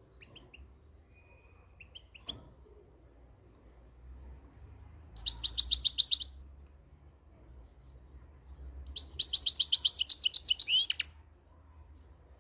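European goldfinch singing: a few faint chirps, then a rapid high trill of repeated notes lasting about a second, and after a pause a longer, faster twittering phrase of about two seconds.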